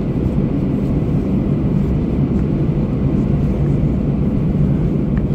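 Steady low rumble inside the cabin of an Airbus A320 rolling along the runway just after landing: engine noise and the roll of the wheels, with a faint hum under it.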